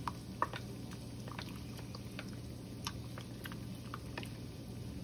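A spoon stirring a thick peanut butter sauce in a bowl as water is mixed in: faint, irregular soft clicks and taps, a few each second, over a steady low hum.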